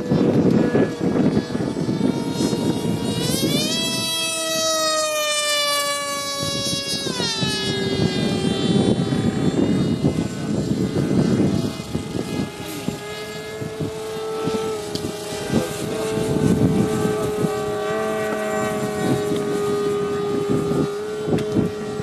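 Electric radio-controlled Bumble Bee model biplane flying past, its motor and propeller making a steady whine. About three and a half seconds in, the whine climbs in pitch and grows louder, then falls away about seven seconds in as the plane passes, with wind rumbling on the microphone.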